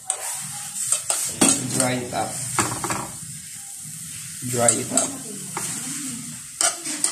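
Shirataki noodles sizzling in a hot non-stick frying pan while being stirred and tossed with metal tongs that click and scrape against the pan, as the drained noodles are dried out.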